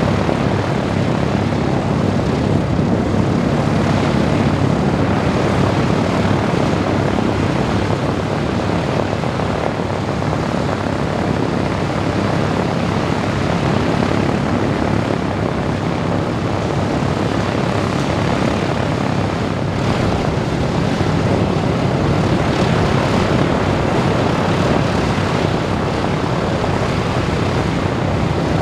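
Four Wright R-1820 Cyclone nine-cylinder radial engines of a B-17G Flying Fortress running steadily, a loud, even propeller drone with no change in level.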